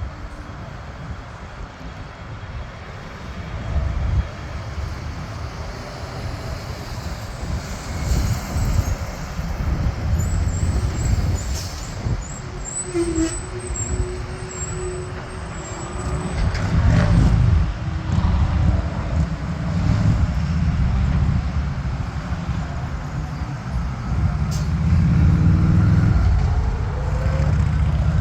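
Low, fluctuating rumble of a business jet's engines on takeoff, mixed with road traffic noise; it swells twice, about two-thirds of the way in and again near the end.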